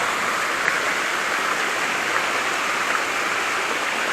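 Waterfall and stream water rushing steadily, the fall running with a light flow.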